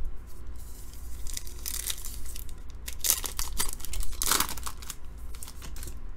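The wrapper of a 2018 Topps Big League baseball card pack being torn open and crinkled in a few short rips, the loudest about three and four seconds in.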